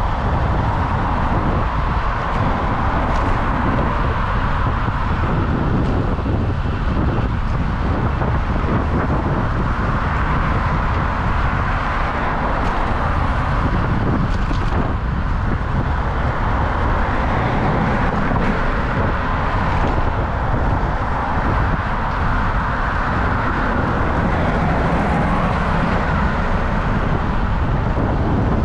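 Steady rush of wind on a bike-mounted action camera's microphone while riding, mixed with the continuous noise of car traffic passing on the road alongside.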